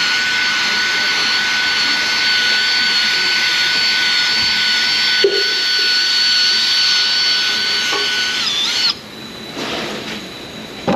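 A handheld electric power tool running at a steady high whine with a rush of noise, then switched off near the end, its pitch dropping briefly as it stops.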